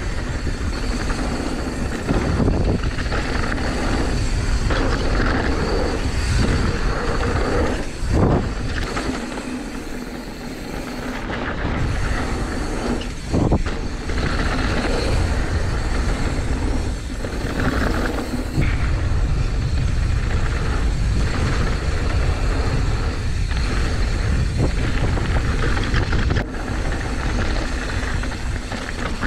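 Mountain bike riding fast down a gravel and dirt trail: wind rumbling on the microphone, tyres crunching over gravel and the bike rattling over bumps, with a couple of sharp knocks about eight and thirteen seconds in.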